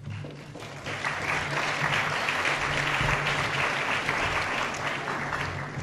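Audience applauding, swelling about a second in, holding steady and fading away near the end.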